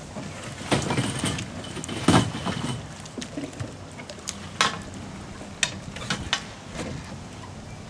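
Sunfish sailboat being handled: irregular knocks and clatter from its hull and fittings, about eight sharp ones, the loudest about two seconds in.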